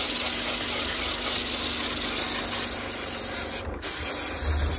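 Cordless Coiljet power washer spraying water into a mini-split's blower wheel: a steady hiss of spray over a low pump hum, with a brief break about three and a half seconds in.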